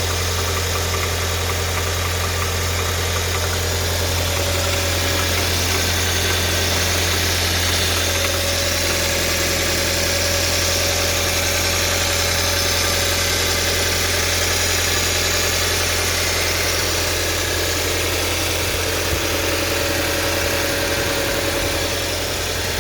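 Audi A4 B7 2.0 TFSI turbocharged four-cylinder petrol engine idling steadily, with no revving.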